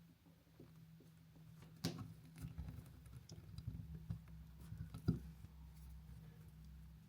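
Scattered small clicks and taps of hand tools working on cut electrical wire, with two sharper clicks about two and five seconds in, over a steady low hum.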